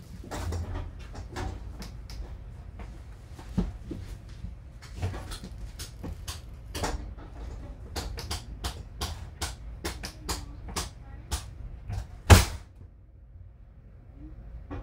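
Knocks, clicks and clatter of people moving about and handling things, ending with a door slamming shut a little after twelve seconds in.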